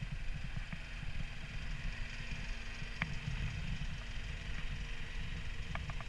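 Wind buffeting the microphone, with a faint steady hum and a couple of sharp clicks from handling or footsteps, one about halfway through and one near the end.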